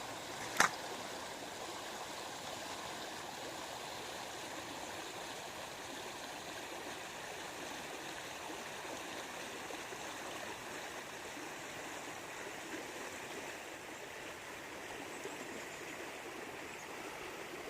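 Small creek rapids flowing between forming ice, a steady rush of running water. A single sharp click about half a second in.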